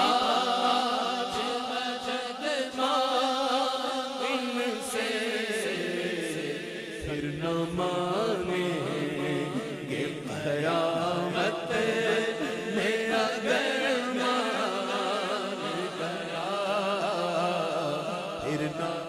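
A man singing an Urdu naat (devotional poem) into a microphone in long, drawn-out wavering notes, ornamenting the line rather than pronouncing clear words.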